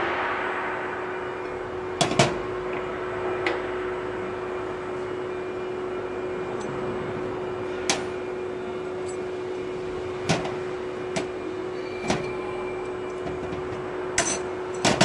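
Automatic-tool-change CNC router sitting powered with a steady hum, while tool holders are handled during a tool change: a hiss that fades over the first couple of seconds, then scattered sharp metallic clicks and knocks.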